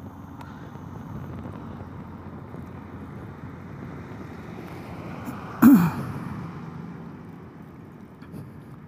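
Steady wind and road noise from riding a scooter, picked up by a helmet-mounted camera's microphone. About halfway through, a single short, loud burst with a sharply falling pitch cuts in over it.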